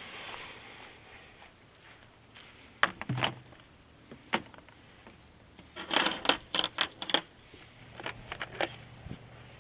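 Scattered clicks and knocks of hand tools and plastic motorcycle parts being handled, with a quick run of them about six seconds in.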